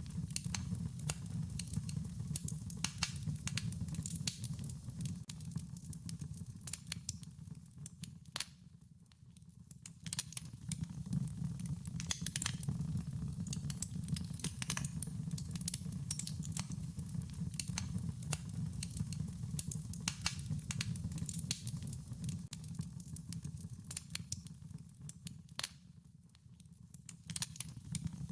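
Wood fire crackling: frequent sharp pops and snaps over a low, steady noise of burning. The sound dips down briefly twice, about a third of the way in and near the end.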